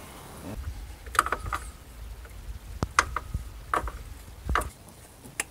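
Scattered sharp metallic clicks and knocks, about seven in a few seconds, from hands and tools working on parts in a car's engine bay during an alternator installation, over a faint low rumble.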